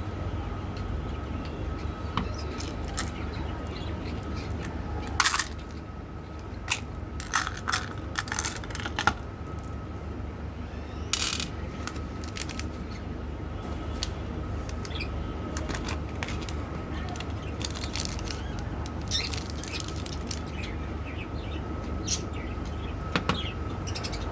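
Candy and its plastic packaging being handled: scattered sharp crinkles and clicks, bunched together about a quarter of the way in and sparser later, over a steady low hum.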